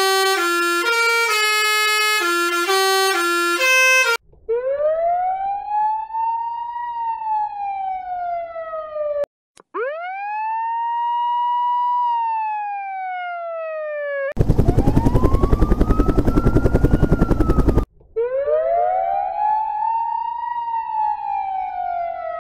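A run of emergency-vehicle siren sound effects. It opens with a jingle of stepped notes that change about twice a second, then several wailing sirens that each climb slowly and fall away, with a loud rapid pulsing stretch among them. Near the end two sirens wail together.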